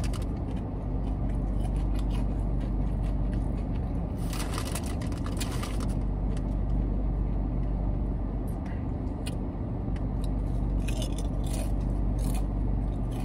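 Steady low rumble inside a car. Over it, crinkling of a potato-chip bag and crunching of chips being eaten, thickest about four to six seconds in and again near the end.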